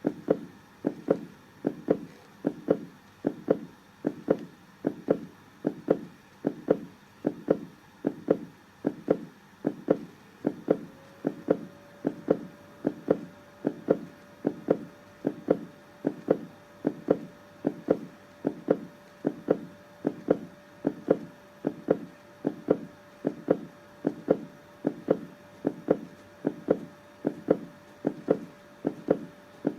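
Heartbeat sound: a steady double thump, lub-dub, about once a second.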